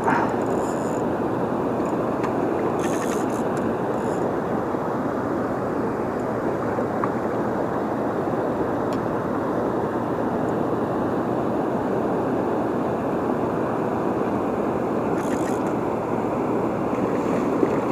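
Steady rush of water spilling over a dam into the tailwaters, with a few short faint rattles about three seconds in and again near the end.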